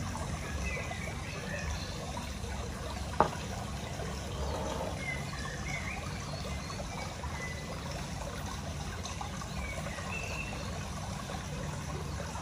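Steady trickling water, with a single sharp click about three seconds in.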